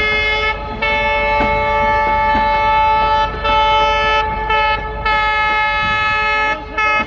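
Locomotive air horn sounding a series of blasts, some short and one of about two and a half seconds, over the low rumble of a passing train.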